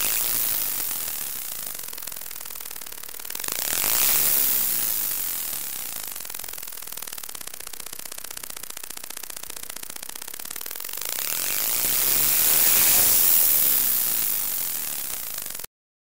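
Mazda RX-8 Renesis two-rotor engine as picked up by its stock knock sensor, playing unfiltered. The engine noise swells twice, briefly about four seconds in and longer from about eleven seconds, with a rising-and-falling pitch, then cuts off suddenly near the end. Within it is a chirping, belt-squeal-like sound that the owner believes is knock, because it went away when he reduced ignition timing.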